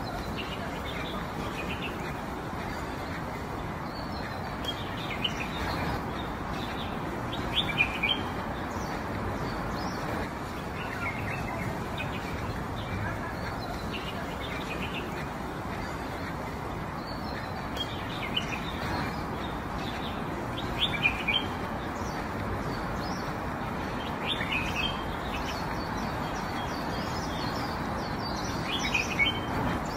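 Small birds chirping, brief high chirps every few seconds, over a steady background hiss.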